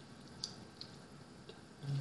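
Close-up eating sounds of someone chewing blue crab meat picked by hand: a few small wet clicks and smacks, then a short low hum near the end.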